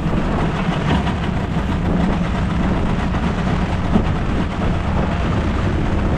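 Steady low rumble aboard a small fishing boat on a rough sea in stormy, rainy weather, with a short knock about four seconds in.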